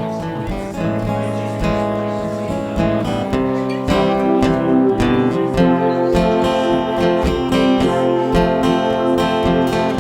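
Acoustic guitar playing an instrumental introduction, a mix of picked and strummed chords, with no singing.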